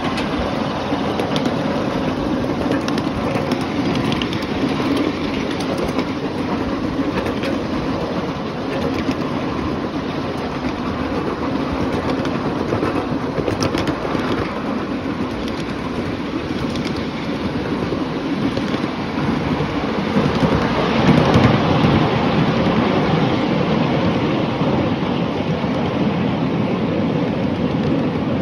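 Ride-on miniature railway train running along its track: a steady rumble of the wheels on the rails and the moving cars, with light clicking. It grows louder about twenty seconds in.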